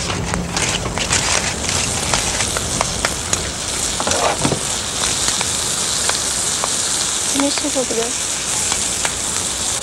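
Hamburger patties and green onions sizzling in a frying pan over an open campfire, a steady hiss dotted with frequent sharp pops and crackles.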